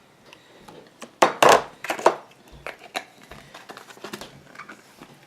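A tablespoon knocking and scraping against a container while aloe vera gel is scooped and measured: a cluster of sharp clicks a little over a second in, then lighter ticks.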